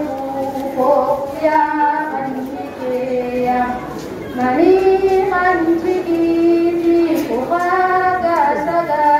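A female voice chanting a qasida (a sung poem) unaccompanied, in long held notes that slide up and down between pitches.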